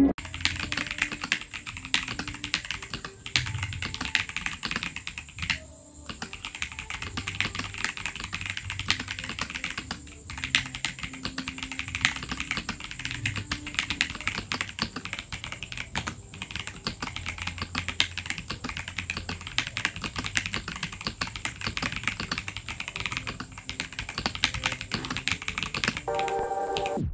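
Continuous fast typing on a Keychron V6 Max full-size mechanical keyboard with stock keycaps, fitted with Gateron Jupiter Banana tactile switches in a gasket mount: a dense run of keystroke clicks.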